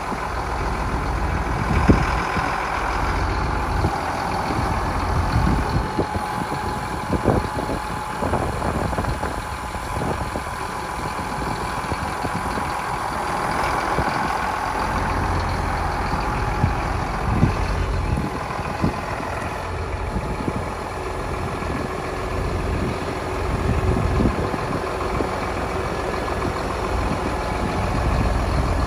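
Massey Ferguson 7718 tractor's six-cylinder diesel engine idling steadily.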